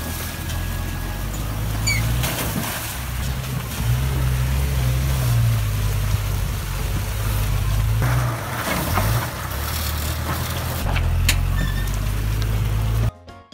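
Toyota Land Cruiser 70-series engine running on a dirt track, its pitch rising and falling a few times as it is driven, over a rushing noise. The sound cuts off suddenly near the end.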